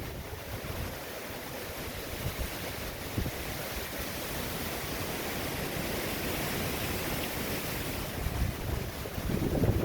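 Hurricane Ian's wind and heavy rain rushing steadily, with gusts buffeting the microphone; a stronger gust swells up near the end.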